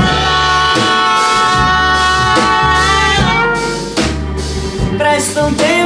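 Live band playing an instrumental passage between sung lines: drum kit and bass under a long held melodic note that slides down about three seconds in.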